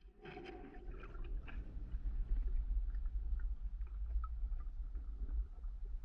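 Muffled underwater rumble, picked up by a submerged camera, with scattered small clicks and crackles. It grows louder over the first couple of seconds.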